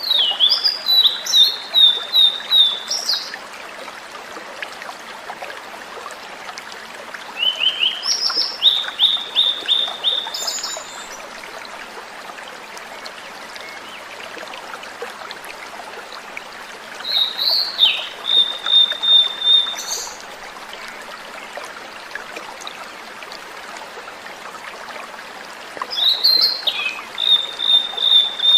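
Blue-and-white flycatcher singing: four clear, fluty song phrases about nine seconds apart, each a run of quick repeated whistled notes ending in a sharp upward flick, over a steady background hiss.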